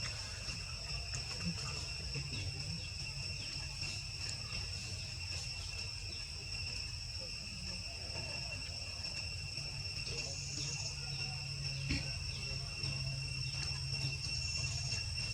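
Steady high-pitched insect chorus, a continuous drone of two high tones, over a low background rumble.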